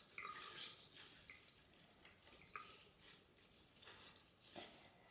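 Faint drips and small splashes of water in a bathroom sink, a few short plinks spread over the seconds.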